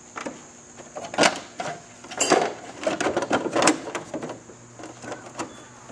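Plastic body panel of a Victory Vision motorcycle being worked by hand under a lip: a handful of irregular knocks and clicks of plastic against plastic.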